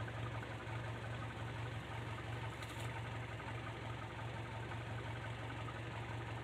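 Fishing boat's engine idling with a steady low hum.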